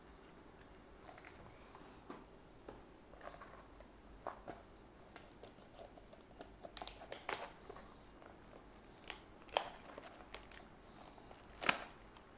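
Hands handling a stack of Weiss Schwarz trading cards and a small cardboard booster box: scattered light rustles, taps and clicks, the sharpest of them about two-thirds of the way through and just before the end.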